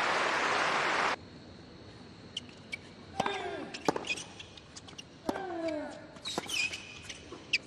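Stadium crowd applause that cuts off abruptly about a second in, then a tennis rally: sharp racket strikes on the ball, several of them with a player's short grunt falling in pitch.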